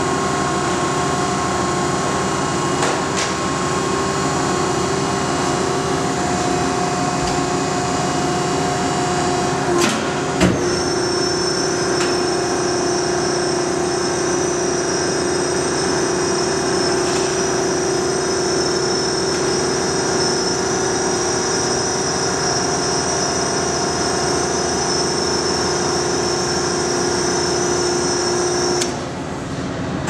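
Hydraulic power unit of a Selco 72-inch high-density downstroke baler running with a steady hum and whine. Two sharp knocks come about ten seconds in, after which a higher whine joins, and the level drops shortly before the end.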